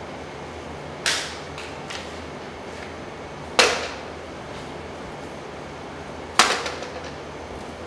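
Three sharp knocks, each with a short ringing tail, about two and a half to three seconds apart, over a steady low hum.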